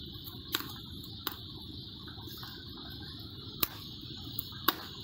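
Chunks of meat frying in a steel pan over a wood-fired rocket stove: a steady high hiss with about four sharp pops spread through.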